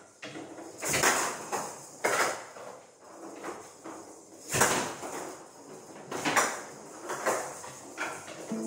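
A series of separate knocks and short scraping or sliding sounds, irregularly spaced a second or two apart, the loudest about one, two, four and a half and six and a half seconds in.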